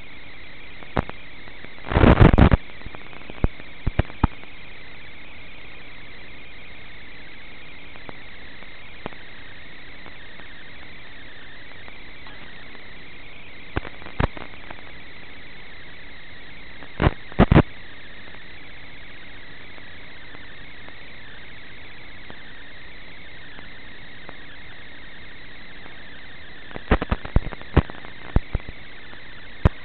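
Steady static hiss from an analog FPV video receiver's audio, broken by short crackles of static: a half-second burst about two seconds in, single pops twice in the middle, and a cluster of pops near the end, typical of the video link breaking up.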